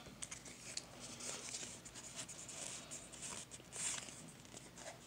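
Pokémon trading cards sliding against one another as a stack is flipped through by hand: a string of faint, soft swishes, one louder a little before four seconds in.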